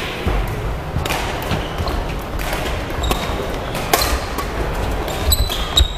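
Badminton rally on a wooden sports-hall court: rackets hit the shuttlecock in sharp, irregular cracks, the loudest about four seconds in and near the end, with short squeaks of court shoes on the floor in the second half, all echoing in the large hall.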